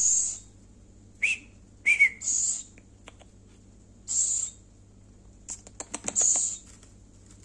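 Owl begging for food while being fed, giving four short hoarse hissing screeches about two seconds apart. Two brief chirps come between the first and second hiss, and a quick run of clicks about six seconds in.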